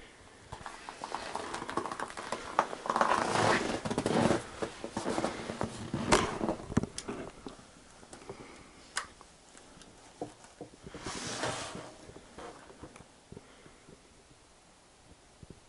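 Savage .22 LR bolt-action rifle being handled, with clattering, then sharp clicks about six, seven and nine seconds in, and a brief rustle around eleven seconds. No shot goes off: the rimfire round is a dud, its primer struck too lightly to fire.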